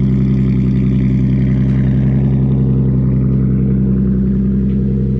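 Lexus IS300's 2JZ-GE inline-six engine idling steadily.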